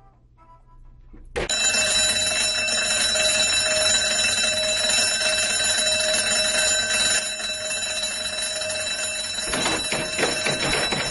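A loud, continuous electric bell ringing, like an elevator alarm bell, starts suddenly about a second and a half in as the elevator stalls, over faint music. A few knocks come near the end.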